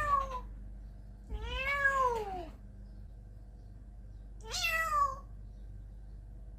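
A cat meowing three times: a short meow at the start, a longer one a little over a second in that rises then falls, and a short one near the end.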